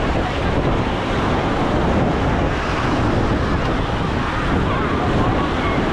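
Ocean surf breaking on the beach, mixed with wind buffeting the microphone in a steady rush.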